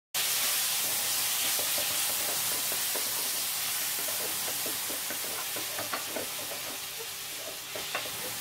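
Pav bhaji sizzling on a hot buttered tawa (flat griddle), a steady hiss that starts abruptly, with a spatula scraping and tapping against the pan; the taps come more often from about five seconds in.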